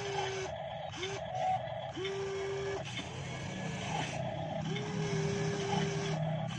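Electric motors of a radio-controlled Kobelco SK200 model excavator whining as the arm and bucket move, in several short runs. Each run starts with a quick rise in pitch and then holds a steady tone; the longest comes near the end, as the boom lifts.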